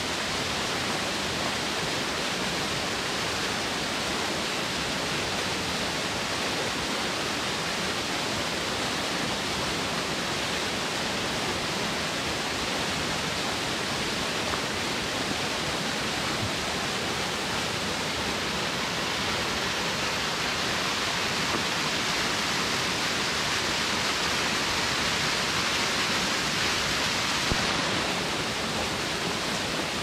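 Small, narrow waterfall pouring steadily down a mossy rock bank: an even, unbroken rushing hiss of falling and splashing water.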